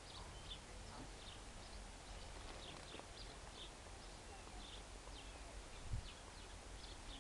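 Faint outdoor ambience: scattered short, high chirps of small birds over a low rumble, with one soft bump about six seconds in. No roaring or growling stands out.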